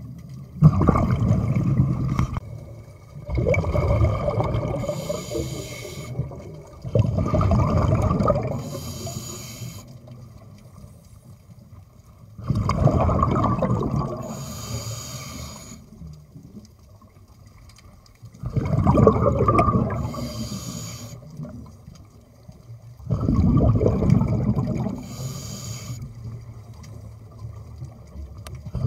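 Scuba diver breathing through a regulator underwater: six breaths a few seconds apart, each a rush of exhaled bubbles with a hiss from the regulator.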